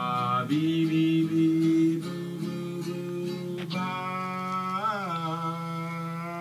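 Acoustic guitar with long held sung notes ending the song, the note changing about four seconds in and the voice bending up and back down a second later.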